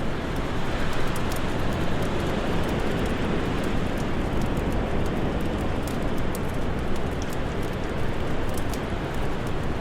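Steady rushing winter wind with a wood fire crackling, many small sharp pops scattered throughout.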